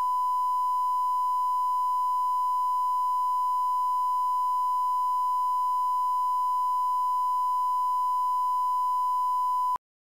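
Steady, unwavering line-up test tone, the standard 1,000-cycle reference tone that accompanies colour bars at the head of a programme, cutting off abruptly near the end.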